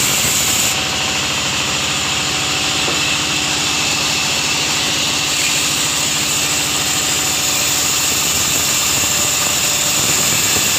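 Sawmill saw running steadily as a segun (teak) log on the carriage is sawn: a loud, even machine drone with a steady high whine.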